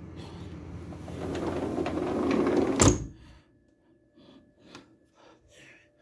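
A window being slid shut: a rising scrape over a steady low rumble from outside, ending in a sharp bang about three seconds in. After the bang the outside rumble is cut off and only faint small sounds are left.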